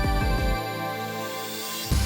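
Electronic background music with a steady beat; the bass beat drops out about half a second in and comes back near the end.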